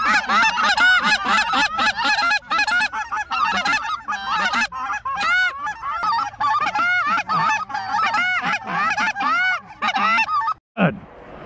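Many Canada goose calls at once: hunters' short-reed goose calls and live geese honking and clucking in a dense, overlapping run of quick arched notes as a flock is called in. The calling stops abruptly near the end.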